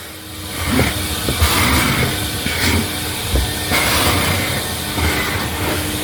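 Vacuum cleaner running steadily as its nozzle works over a car's interior, with a few knocks of the nozzle against the car.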